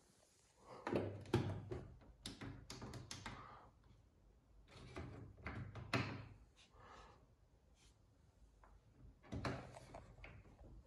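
Plastic push buttons and the selector knob on a Bosch Maxx WFO 2480 washing machine's control panel clicking as they are pressed and turned, in several separate groups of clicks.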